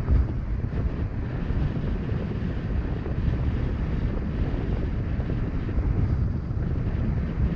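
Wind buffeting the microphone of a camera riding on a moving vehicle, over a steady low rumble of road noise.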